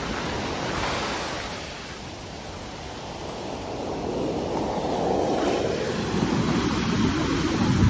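Ocean surf breaking and foamy wash running up over the sand, the hiss swelling louder through the second half, with wind rumbling on the microphone near the end.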